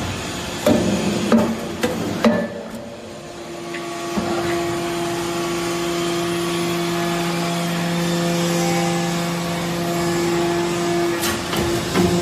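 Metal-chip briquetting press at work: several sharp metallic clanks, then a steady machine hum from about four seconds in, with more clanks near the end.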